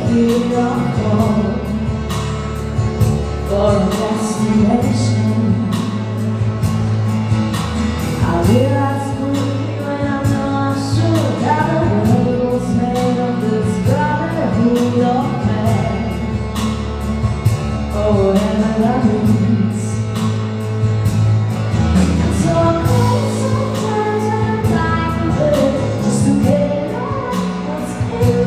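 A stage show's live song: a singer over pop music with a steady drum beat and bass.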